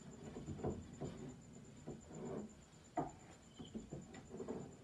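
Scattered light knocks and taps from a marine plywood shelf board being handled against its wall brackets, the sharpest knock about three seconds in.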